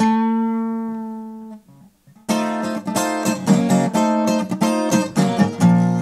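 Acoustic guitar: a chord rings out and fades over about a second and a half, a short pause, then steady strumming begins a little over two seconds in.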